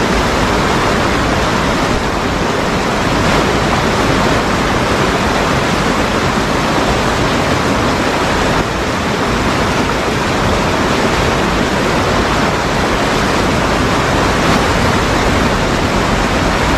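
Steady rush of river water spilling below a dam and pouring through boulders as whitewater, loud and unbroken.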